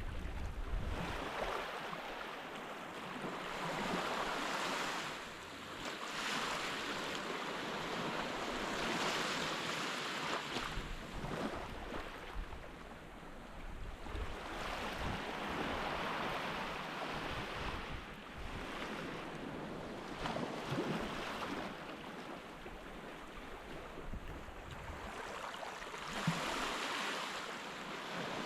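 Surf washing onto a beach, a steady hiss of waves that swells and eases every few seconds.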